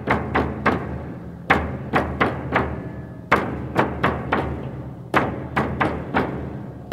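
Live Iberian percussion playing sharp, hard strikes in a repeating pattern of three or four beats, about every two seconds, over a low steady drone.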